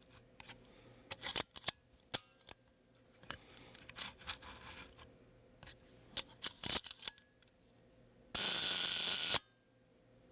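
Shutter of a 1950s David White Stereo Realist stereo camera being worked and fired: a series of small sharp mechanical clicks from the controls, then near the end a buzz lasting about a second as the shutter runs at a slow speed.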